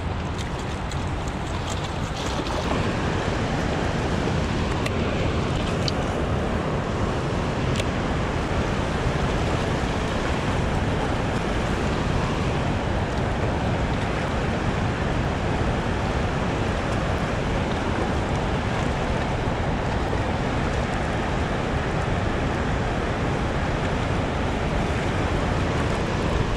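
Steady, unbroken rushing of water, with wind on the microphone.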